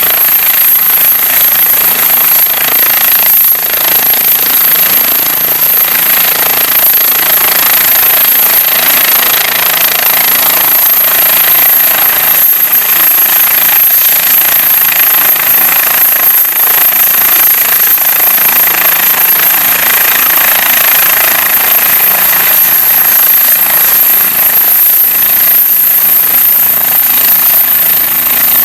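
Medevac helicopter's turbine engine and rotor running at close range, a loud steady din.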